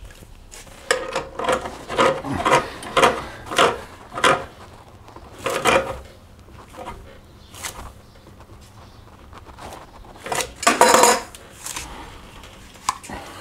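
Threaded plumbing fittings being screwed together and tightened: a run of short scraping, rubbing strokes about half a second apart, a pause, then a longer, louder scrape near the end.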